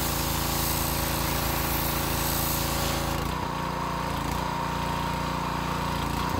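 The 7 hp four-stroke petrol engine of a Wilks USA TX625 pressure washer is running while the turbo nozzle sprays a paving slab, the water jet hissing over the engine note. About three seconds in the spray stops and the engine runs on with a steady high whine. At the very end the engine is switched off.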